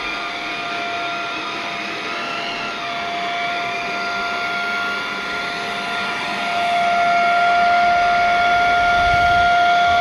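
Atvel G9 cordless vacuum cleaner running on carpet: a steady motor whine over a rush of air, getting louder about two-thirds of the way through.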